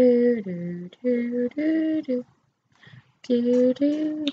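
A woman singing a short tune without clear words, holding each note briefly and stepping from pitch to pitch. She breaks off about two seconds in and starts again after a pause of about a second.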